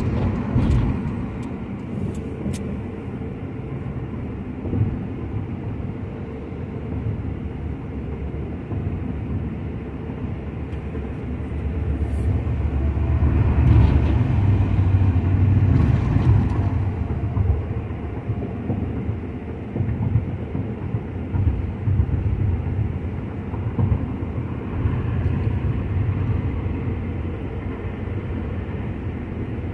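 Road and engine noise of a car at highway speed heard from inside the cabin: a steady low rumble that grows louder for a few seconds around the middle.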